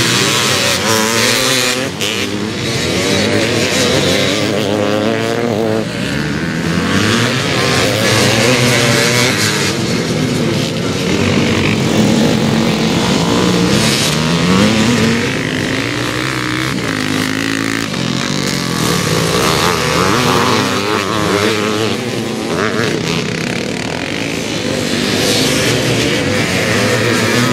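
Classic motocross bikes racing past one after another, their engines revving up and down as they accelerate and ease off through the turns, so the pitch keeps rising and falling.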